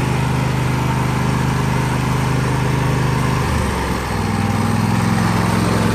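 Riding lawn mower engine running steadily; about three and a half seconds in its note drops and settles lower.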